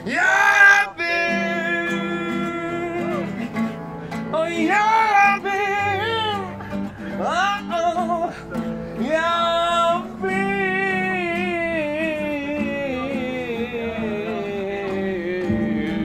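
Acoustic guitar played with a voice singing over it, in long held notes with vibrato; near the end one long note slowly falls in pitch.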